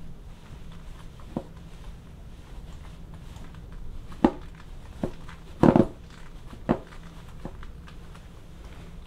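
Black leather stiletto platform boots stepping and shifting on a padded surface over a wooden floor: about six scattered knocks and taps, the loudest a short cluster a little past halfway, over a low steady hum.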